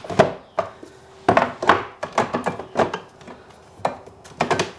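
Metal cans and glass jars knocking against each other and the wooden cupboard shelf as they are set down and shuffled around, about a dozen sharp, irregular clunks and clinks.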